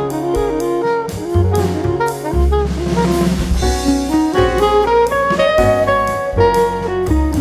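Jazzy instrumental background music: a melody line over a drum kit and bass with a steady beat.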